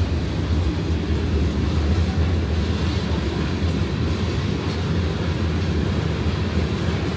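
A freight train's boxcars and covered hopper cars rolling past, a steady low noise of steel wheels on the rails.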